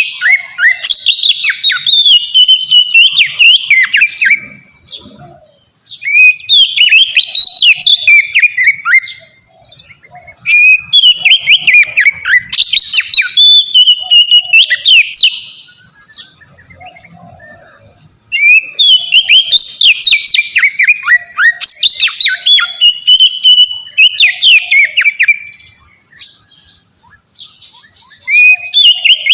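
Oriental magpie-robin (kacer) singing a loud, open song of rapid, varied whistled notes with many quick downward slurs, in about five long bouts broken by short pauses.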